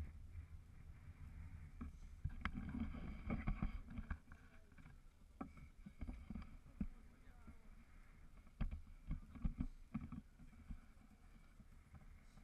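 Low steady hum of a tour catamaran's engine, with sharp knocks and clicks scattered over it, clustered about two to four seconds in and again around nine to ten seconds.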